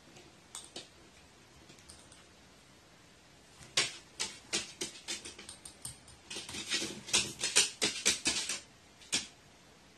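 Pet carrion crow pecking at water balloons in a plastic basin and stepping about on a wooden floor: a quick, irregular run of sharp taps and clicks. They start about four seconds in, come thickest around seven to eight seconds, and end with one more tap near nine seconds.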